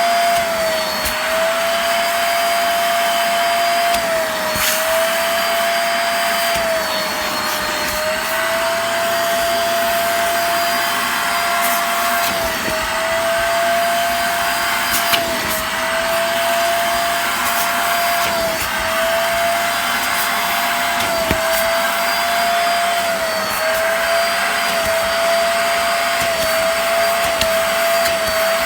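Hoover Spotless portable carpet cleaner's suction motor running, sucking the sprayed cleaning water back out of the upholstery through its hose. A steady whine whose pitch sags briefly every few seconds, with a few faint clicks.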